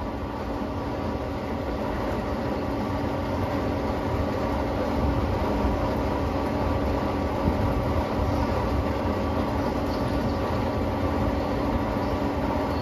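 Okuma CNC turret lathe running with its spindle turning the workpiece: a steady machine hum with a constant whine, growing a little louder over the first few seconds. Abrasive in a shop towel is held against the spinning suppressor cap to polish out machine lines.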